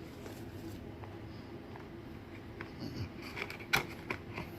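Packaging being handled: a few faint rustles and light clicks in the second half, with one sharper click near the end, over quiet room tone.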